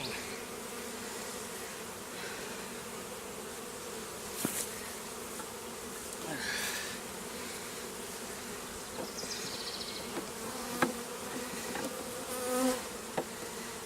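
Honey bees buzzing in a steady, massed hum around an opened hive, with a few short light knocks, the clearest about four and a half seconds and eleven seconds in.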